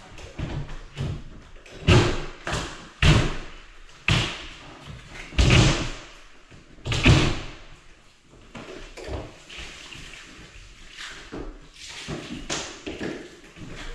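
Heavy thumps and knocks of drywall being broken and pulled out of an interior wall, at irregular intervals about a second apart. They ease off to softer knocks after about eight seconds.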